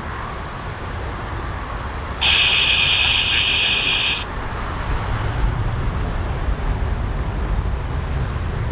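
Steady low rumble of gusting wind and aircraft engine noise at the airfield. About two seconds in, a steady high-pitched buzzing hiss from the airband radio receiver is the loudest sound for about two seconds, then cuts off.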